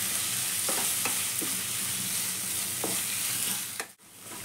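Grated raw mango, green chillies and capsicum sizzling in oil in an aluminium kadai, stirred with a metal ladle that scrapes and clinks against the pan a few times. The sound cuts out briefly near the end.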